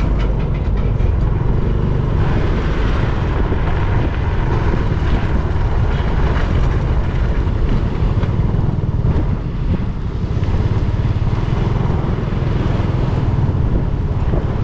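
Honda XRM 125 motorcycle's single-cylinder four-stroke engine running steadily while riding in traffic, mixed with wind buffeting the microphone and road noise.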